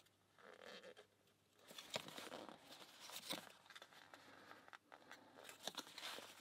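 Faint scratching and small clicks of a fingernail picking at the edge of a sticker, trying to peel it off its backing paper, with light paper rustling.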